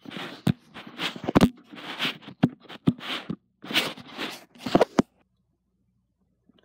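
Close handling noise on the recording phone: rustling against fabric in short bursts, with sharp clicks and knocks, stopping suddenly about five seconds in.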